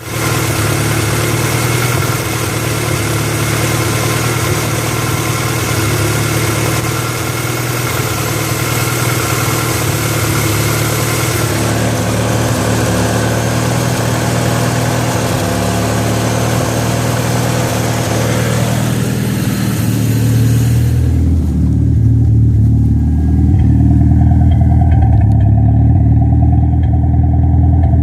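Toyota Celica GT-Four ST205's 3S-GTE turbocharged four-cylinder engine running steadily with a misfire. A high hiss over the engine note falls away about three-quarters of the way through, leaving the low engine sound.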